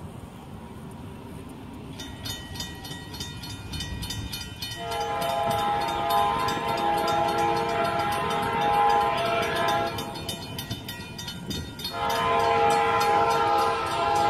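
Approaching CSX freight locomotive's multi-chime air horn sounding two long blasts: the first starts about five seconds in, and the second starts after a short pause about twelve seconds in. This is the horn signal for the grade crossing. From about two seconds in, a grade-crossing bell dings rapidly and evenly beneath it.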